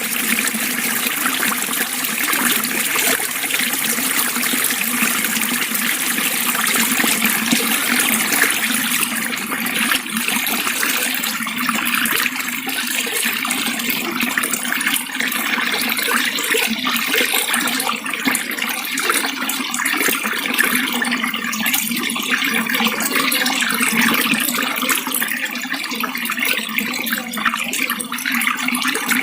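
Water running and splashing in a steady, continuous flow.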